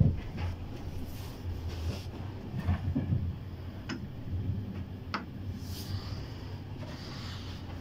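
Steady low rumble of a passenger train coach's interior, with a few sharp ticks, the clearest about four and five seconds in.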